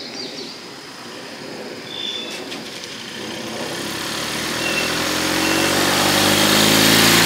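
A motor vehicle's engine, faint at first, growing steadily louder over the last four seconds, its pitch rising slightly near the end, with a few short bird chirps in the quieter first half.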